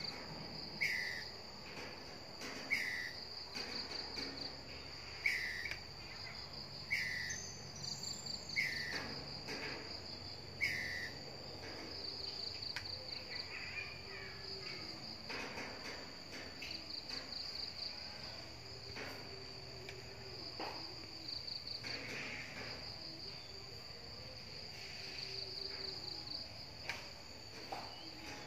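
A squirrel's short threat call, repeated six times about every two seconds over the first eleven seconds, aimed at a cat. Behind it, insects keep up a steady high trill that pulses now and then.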